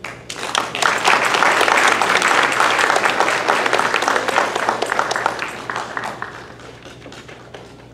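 Audience applauding, starting right away, loudest in the first few seconds and dying away about six to seven seconds in.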